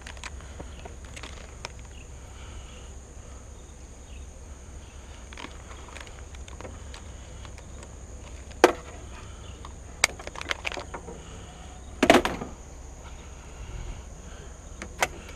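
Scrap being handled in a trailer: a few sharp knocks and clatters, the loudest about twelve seconds in with a brief ring. Under it, a steady high insect drone.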